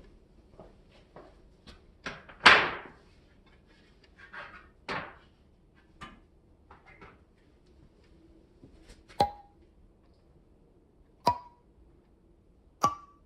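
Scattered knocks and clacks of objects being handled and set down: one louder thunk about two and a half seconds in, a few softer scrapes and taps, then three sharp knocks, each with a short ring, in the last four seconds.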